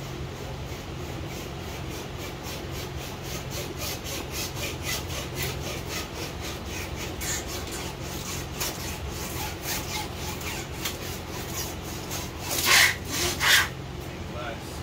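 Guitar-string wire being sawed back and forth through the bonding adhesive of a windshield to cut the glass out: a rhythmic rasp of about three strokes a second, with two louder strokes near the end.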